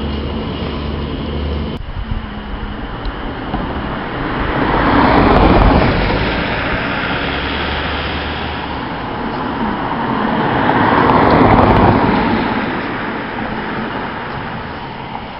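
Road traffic: two vehicles pass one after the other, their tyre and engine noise swelling and fading about five seconds in and again about eleven seconds in, over a steady low hum.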